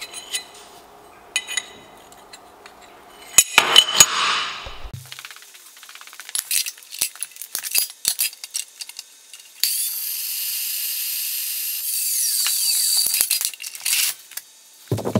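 Small steel parts clinking and knocking as they are handled and a steel bar is clamped, with a louder clatter about a quarter of the way in. Past the middle, a metal-cutting chop saw cuts through the steel bar for about four seconds, its pitch falling as the blade spins down.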